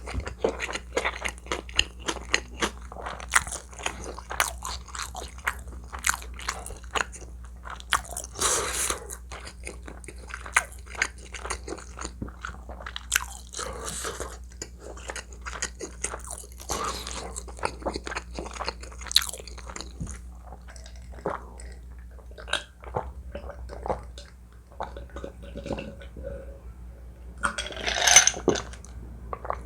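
Close-miked eating: a person chewing and biting food, with many short crunches and wet mouth clicks one after another, and a louder cluster of mouth sounds near the end.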